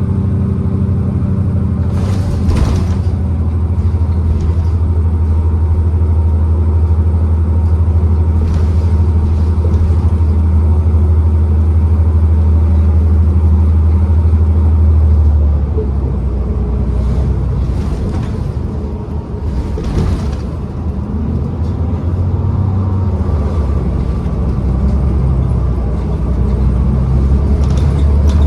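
2012 New Flyer XDE40 diesel-electric hybrid bus running, heard as a steady low drone that falls away about halfway through and builds again near the end. Several short hissing sounds come and go along the way.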